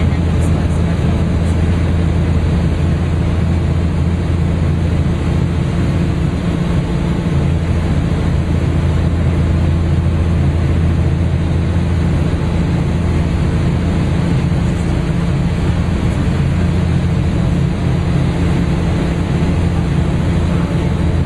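Cabin noise of a Cessna 400 Corvallis during the landing approach: its turbocharged Continental TSIO-550 six-cylinder engine and propeller droning steadily with a deep hum under a rush of airflow, heard inside the cockpit.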